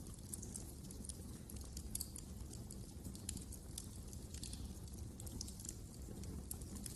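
Wood fire in a fireplace crackling: many small, irregular pops and snaps over a steady low rumble of the flames.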